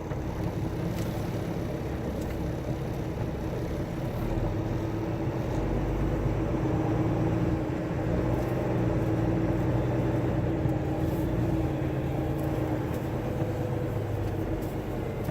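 Semi-truck's diesel engine running steadily as the loaded tractor-trailer drives off the scale, a constant drone with a low rumble that grows a little louder about four seconds in.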